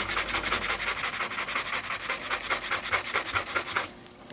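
Stiff bristle brush scrubbed rapidly back and forth over the leather of a Zett baseball glove, about eight strokes a second, brushing out sand. The scrubbing stops shortly before the end.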